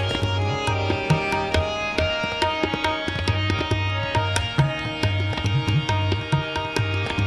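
Hindustani classical music in Raag Jog: tabla keeping a steady rhythm, with dense strokes and a booming bass drum, under held melodic notes.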